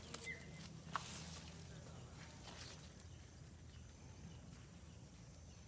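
Quiet outdoor ambience with faint rustling and one sharp click about a second in.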